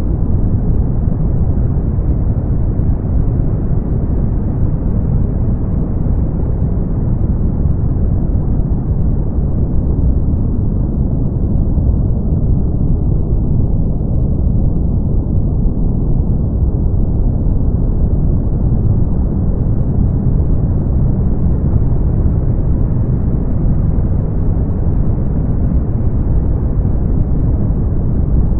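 Synthetic brown noise: a steady, deep hiss, heavy in the bass with no high end, its top edge growing slightly duller about halfway through.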